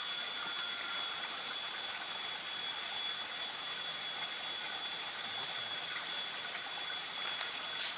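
Steady background hiss with a constant high-pitched whine, and a brief sharp noise near the end that is the loudest moment.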